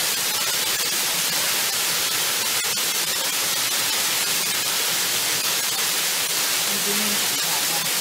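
Small waterfall splashing onto rocks: a steady rush of falling water that does not change.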